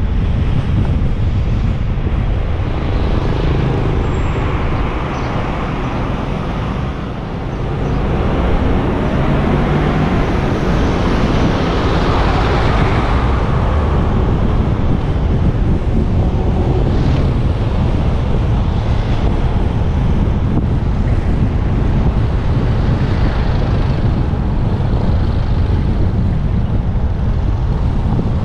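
Motorcycle riding at road speed, with wind rushing over the microphone and steady road noise. The level dips briefly about seven seconds in, then swells again.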